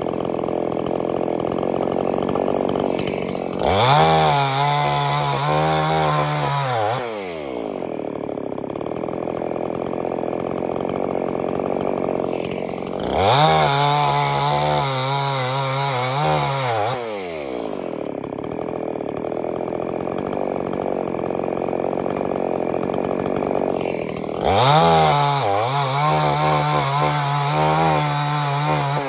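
Petrol chainsaw idling, revved up three times for about three to four seconds each to cut through scrap boards, the engine note wavering under load in each cut before falling back to idle.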